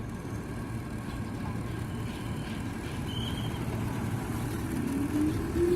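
Tokyu 8500 series electric commuter train starting to pull away: a steady low rumble that grows slowly louder, with the traction motors' whine rising in pitch near the end as it gets under way.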